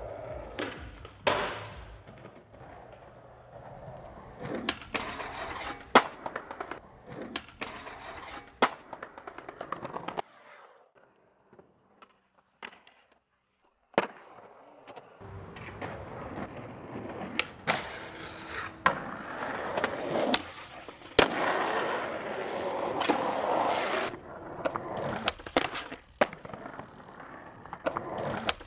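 Skateboards on concrete: wheels rolling, broken by many sharp clacks and slaps of board impacts. A stretch of near silence sits about ten to fifteen seconds in.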